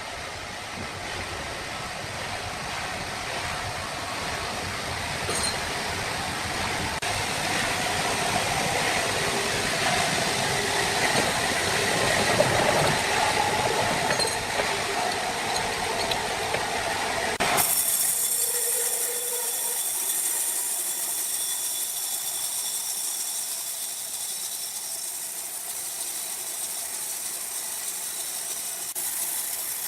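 Sawmill machinery running with a steady mechanical din that grows louder toward the middle. About two-thirds of the way through, the deep rumble cuts off abruptly, leaving a thinner, higher hiss.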